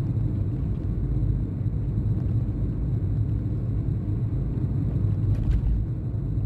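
Steady low rumble of a moving vehicle on an open road: wind and road noise, with no engine note standing out.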